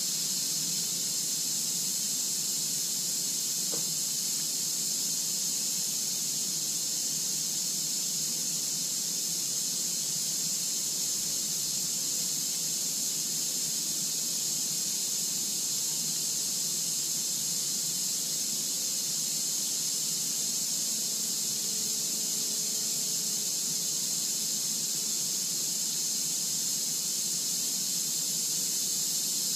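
Steady high-pitched hiss that never pauses or changes.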